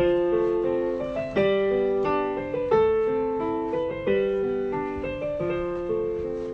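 Electronic keyboard played with a piano sound: a slow melody over lower chords, each note struck and left to fade.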